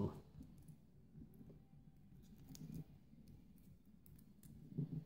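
Faint handling noise of a thin thermocouple probe wire and its small plastic plug being untangled in the hands: scattered small clicks and rubbing.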